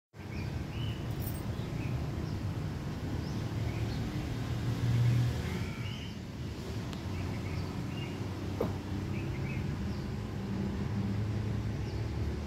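Outdoor background: a steady low rumble, a little louder about five seconds in, with small birds chirping now and then.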